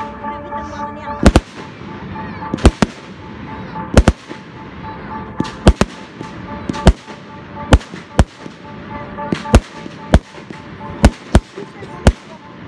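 Aerial fireworks going off in a rapid series of sharp bangs, about one a second and often in quick pairs.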